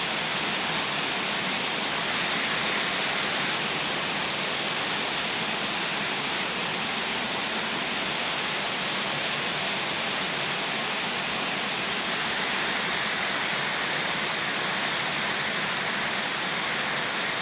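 Heavy rain falling steadily during a storm, a constant even hiss of downpour.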